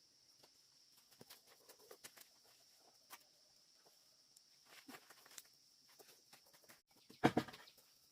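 Scattered light rustles and clicks over a steady high insect drone, with a louder rustling burst about seven seconds in.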